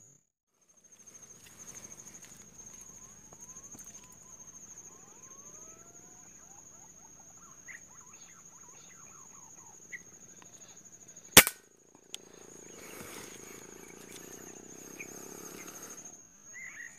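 A single sharp shot from a scoped hunting rifle about eleven seconds in, the loudest sound by far, over a steady high insect buzz and a few bird calls. A few seconds of rustling and handling noise follow the shot.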